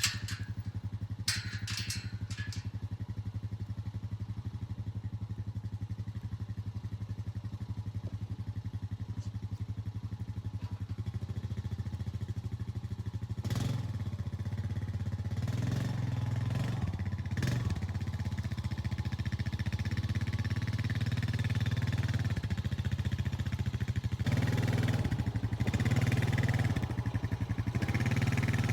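An engine running at a steady speed, getting louder from about halfway through, with a few brief louder bursts.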